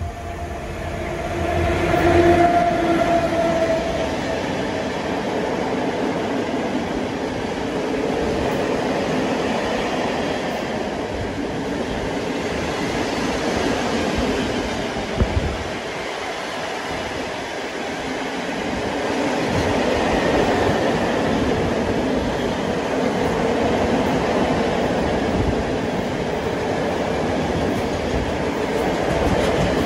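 A train running past on the tracks: a long, steady rush of wheel-on-rail noise, with a short pitched note about two seconds in.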